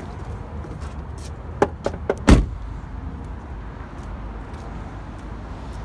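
A 2017 Ford Transit van's door is shut with one loud, heavy thud a little over two seconds in, after a couple of lighter clicks. A steady low rumble runs underneath.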